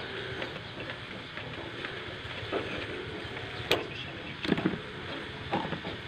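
Steady background noise with a few sharp clicks in the second half, from hair clippers and a brush being handled.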